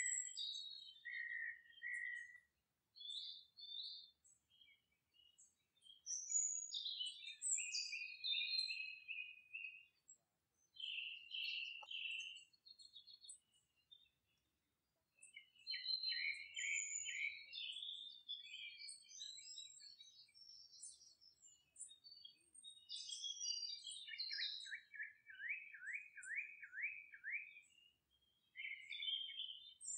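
Songbirds chirping and singing in short overlapping phrases, with a brief lull near the middle. Late on, one bird gives a run of about seven quick, downward-slurred notes.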